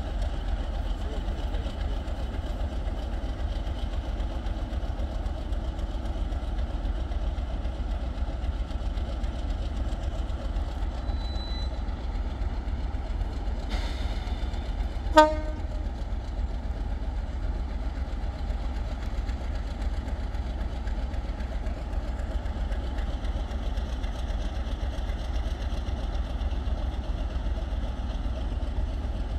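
Diesel locomotives of a quintuple-headed train, led by a Class 50, running with a steady low rumble as they pull slowly into the station. About halfway through there is one short horn toot.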